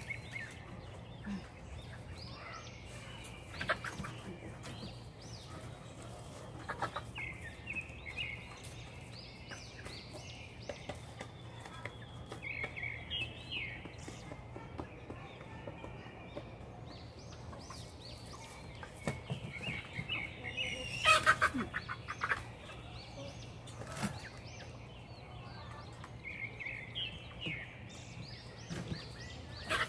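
Chickens in a backyard coop making repeated short calls, with a few sharp knocks, the loudest about two-thirds of the way through, over a steady low hum.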